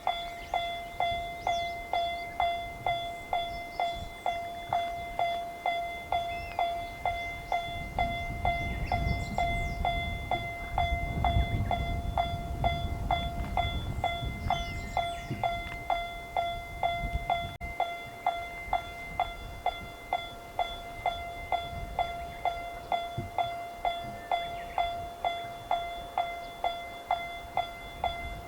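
Japanese railroad crossing alarm sounding its "kan-kan" warning: one ringing pitched strike repeated about twice a second, each dying away quickly. A low rumble swells and fades midway through.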